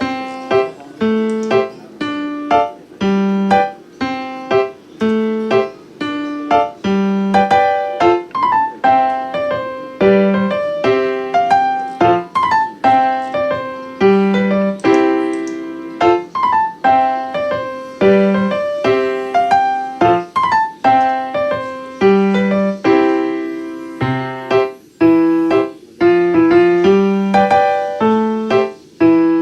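Background piano music: a steady run of struck notes over a repeating lower line.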